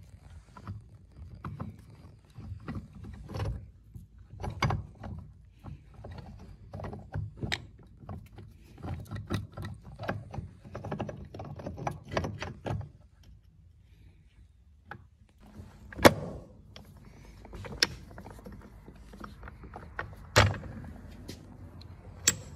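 Steel gear shafts, bearings and a drive chain clinking, scraping and knocking against one another and the transmission case as three shafts are worked into mesh together by hand. Irregular metallic clicks and clunks, with two sharper knocks in the later part.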